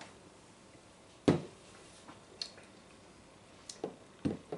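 A few short knocks and clicks from people sipping a drink and setting small tasting glasses down on a bar. The loudest knock comes just over a second in, and a cluster of soft knocks follows near the end.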